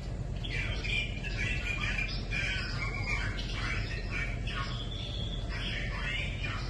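Birds squawking and chirping in quick repeated calls, over a steady low rumble.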